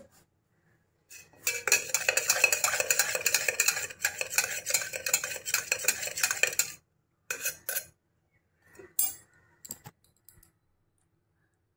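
A utensil stirring fast against a dish, with quick clinking and scraping for about five seconds, then a few short separate clatters of kitchenware.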